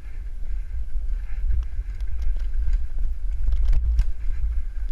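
Mountain bike riding a dirt single-track trail: wind buffeting the camera microphone over a continuous rumble of tyres and bike on the rough ground, with a couple of sharp knocks from the bike about four seconds in.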